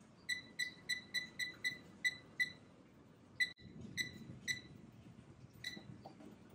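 Air fryer's digital control panel beeping as its buttons are pressed. There is a quick run of about eight short, high beeps at roughly three a second, then a few more spaced out.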